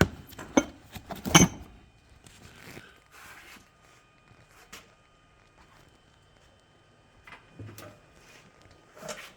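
A cardboard parts box being handled and opened: a few sharp knocks and scrapes in the first second and a half, then quieter rustling with occasional small taps.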